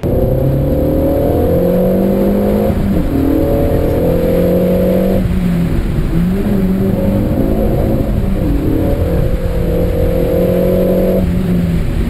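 Renault Mégane RS's turbocharged four-cylinder engine, heard from inside the cabin, driven hard on a rally stage: it revs up and drops back in pitch several times as it shifts gears or lifts, about three, five and eleven seconds in.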